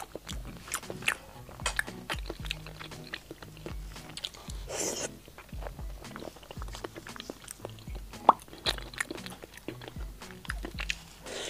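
Close-miked chewing and biting of skewered food: many small, sharp, crunchy clicks from the mouth, over steady background music.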